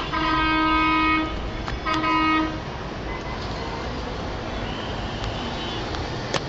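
A horn sounds two steady blasts, a long one and then a shorter one, over a steady wash of city street noise. A single sharp click comes near the end.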